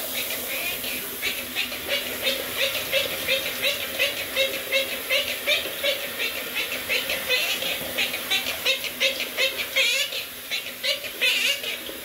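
Quaker parrot (monk parakeet) chattering in a fast, even run of short chirps, about three a second, over the steady hiss of the running shower.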